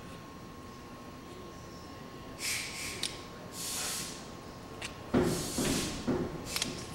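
A man's breathing: several short hissing breaths, the loudest about five seconds in, with a few light clicks of handling and a faint steady tone underneath.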